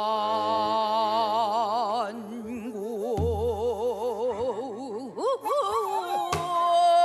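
Pansori singing: one voice holds long drawn-out notes with a wide, wavering vibrato and slides up in pitch about five seconds in. There is a low thump about three seconds in.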